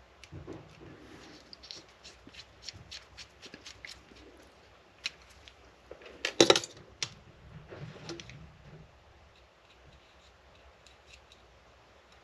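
Quick clicks and light rattles of small parts being handled, with one louder clatter about six and a half seconds in.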